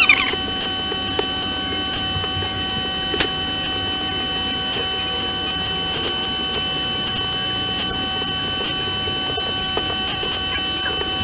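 Steady hiss with a constant high-pitched electrical whine made of several fixed tones, broken by a few faint clicks in the first few seconds and a brief squeaky scratch at the very start. The clicks fit computer mouse clicks while drawing.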